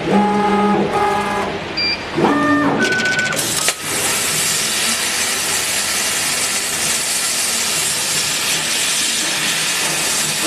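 A few short horn-like buzzing tones, then, about four seconds in, a sudden onset of a loud, steady hiss: the CO2 laser cutter's assist-gas jet blowing through the nozzle as it cuts stainless steel sheet.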